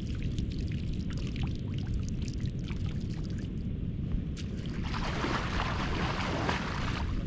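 Water dripping and trickling from a prawn scoop net lifted out of shallow water, then, about five seconds in, a couple of seconds of louder splashing as the net is swept and the wader moves through the water. A steady low rumble runs underneath.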